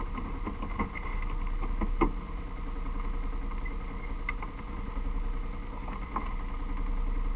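Enduro dirt bike engines idling steadily, with a few scattered clicks and knocks.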